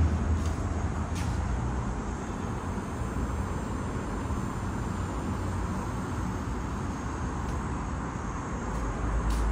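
Steady street traffic noise, a low rumble with a hiss of road traffic, growing deeper and louder near the end.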